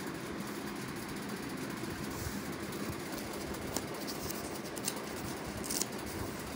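A few brief crinkles of stiff paper as a kraft-paper mailer and the paper packets inside it are handled, over a steady low background hum.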